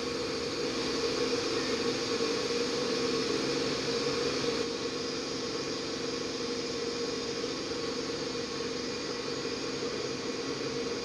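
Steady mechanical hum with a strong low tone over an even hiss, unchanging throughout.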